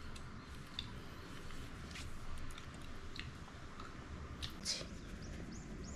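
Faint, scattered mouth clicks of a Shih Tzu chewing and smacking its lips. Near the end comes a quick run of short high chirps, two or three a second.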